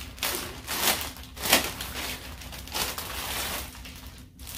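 Plastic packaging bag crinkling and rustling in several irregular bursts as it is handled and opened.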